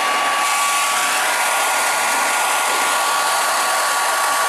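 Handheld hair dryer running steadily: an even rush of blown air with a thin, constant motor whine.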